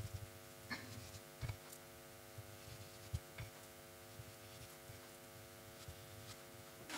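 Faint scattered taps and light brushing as a paintbrush is worked along the edge of a wooden log slice, over a low steady hum.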